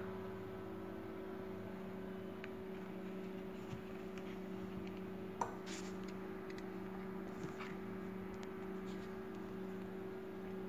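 A steady low hum with a few light clicks and taps; one sharper click about halfway through.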